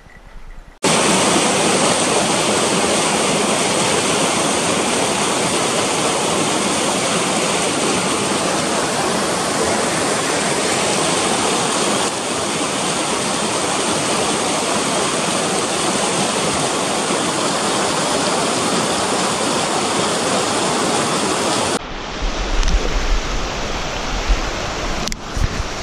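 Steady rushing of fast-flowing water, as from a mountain stream or waterfall, starting abruptly about a second in. It cuts off near the end, giving way to gusty wind buffeting the microphone.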